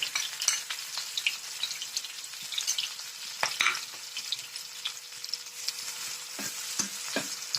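Chopped onions sizzling in hot oil in a pan, a steady hiss. A few short knocks and scrapes of stirring come about halfway through and again near the end.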